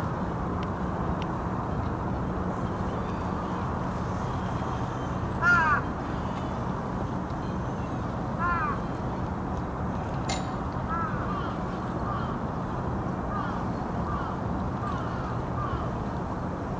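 Crows cawing: a loud run of caws about five seconds in, another a few seconds later, then fainter caws near the end, over a steady low hum and rushing background noise. A single sharp click about ten seconds in.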